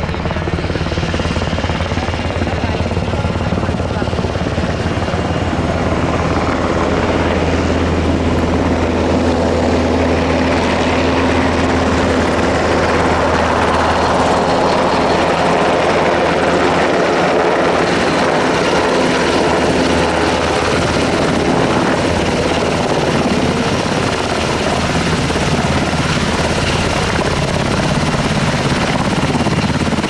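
Sikorsky VH-60N WhiteHawk helicopter flying close by: loud, steady main-rotor beat and turbine noise from its twin turboshaft engines. The deep rotor beat eases off in the second half as the mid-range noise rises.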